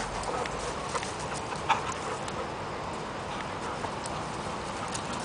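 Dogs' paws scuffling on dry dirt and wood chips as two dogs tussle, with a few soft knocks.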